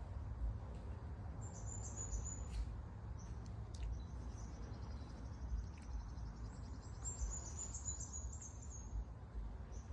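High-pitched bird chirping in rapid trills, a short run about a second and a half in and a longer one from the middle to near the end, over a low steady rumble.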